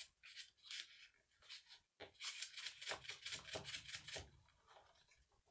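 Faint scratching and rustling of a thin feeder wire being pushed by hand down through a drilled hole in a model railway layout. A few light ticks come first, then a quick run of scratches about two seconds in, lasting about two seconds.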